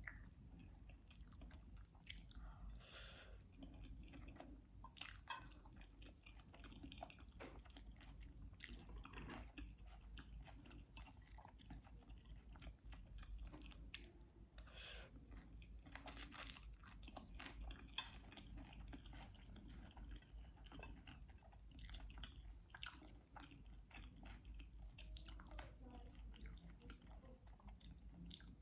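Faint chewing: a person eating, with soft, irregular mouth clicks and smacks throughout.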